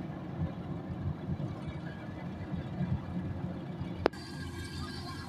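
Kubota DC105X combine harvester running, a steady low diesel rumble. A sharp click about four seconds in, after which the sound shifts slightly.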